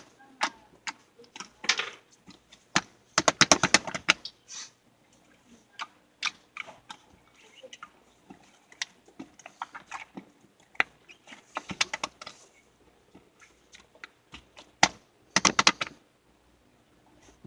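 Irregular sharp clicks and taps, some single and some in quick runs of about ten a second, like typing.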